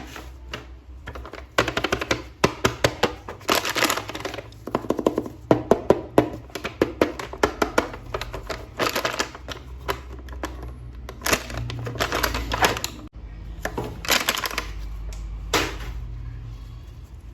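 Hands handling a plastic action figure toy, making bursts of rapid clicking and crackling, each lasting a second or two.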